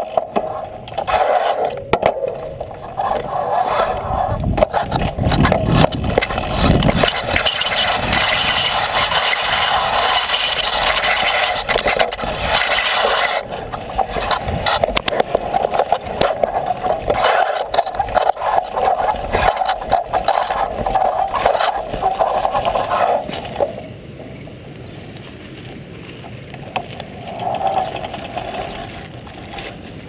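Bicycle ridden over a rough, rocky dirt trail: continuous rattling, knocking and scraping from the jolts of the bike and its mounted camera. About 24 seconds in it drops to a softer, steadier rumble.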